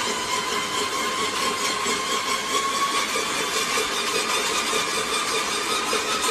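An engine or motor running steadily with a high, even whine.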